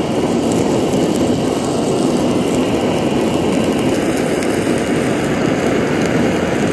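Handheld gas torch hissing steadily as its blue flame sears pieces of pike conger on a wire rack.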